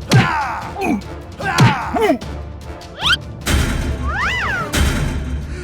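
Sound effects over background music: two quick falling whistling sweeps, each with a thud, about a second and a half apart, then a short rising sweep and a tone that rises and falls.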